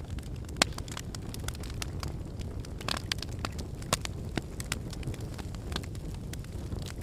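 Wood fire burning in a fireplace: a steady low rumble with frequent irregular crackles and sharp pops, one especially loud pop about half a second in.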